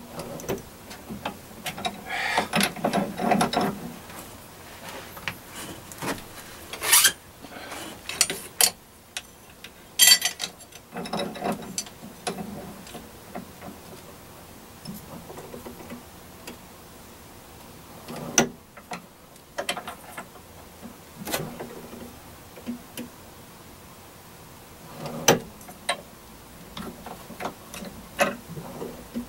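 A metal drill-press vise being cranked and shifted on the drill-press table: irregular metal clicks, rattles and short scrapes, with a handful of sharp knocks spread through.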